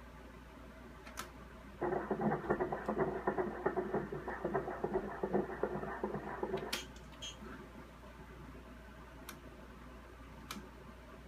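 Fetal heartbeat at 34 weeks heard through a Doppler monitor's speaker: a fast, pulsing whoosh that starts suddenly about two seconds in and cuts off about five seconds later. A few faint clicks follow near the end.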